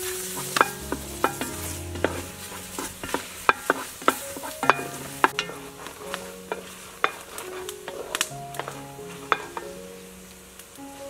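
Wooden spatula stirring and scraping in a large aluminium pot, knocking against the metal in irregular sharp clicks, while garlic and galangal fry in a sizzling paste. The stirring eases near the end.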